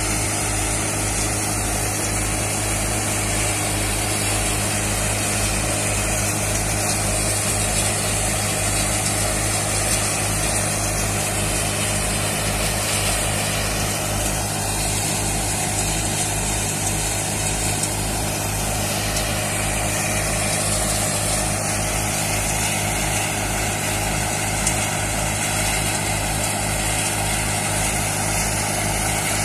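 Mahindra Arjun 555 DI tractor's diesel engine running steadily under load, driving an NVT multicrop thresher through its PTO while dry crop is fed in, the thresher's drum and sieves running with it. A regular low throb repeats a little under twice a second throughout.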